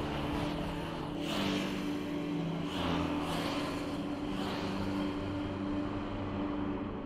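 Touring motorcycles passing by one after another, each engine swelling as it goes past, about three passes a second and a half apart.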